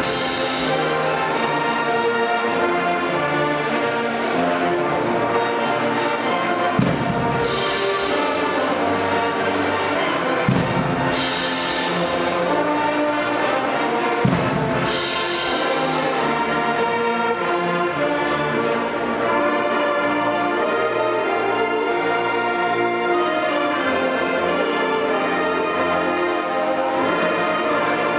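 Brass-heavy band music playing steadily, with a cymbal crash and drum hit about 7, 11 and 14.5 seconds in.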